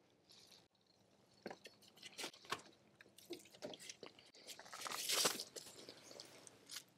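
Scattered crunching and rustling handling noises, with a louder rustle about five seconds in.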